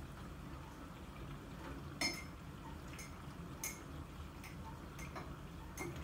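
About six light, sharp clicks and clinks at uneven intervals, the loudest about two seconds in with a short ring, over a low steady background hum.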